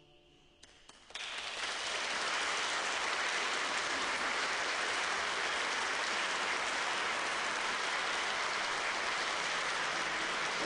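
Audience applauding, starting about a second in after a brief quiet and then holding steady.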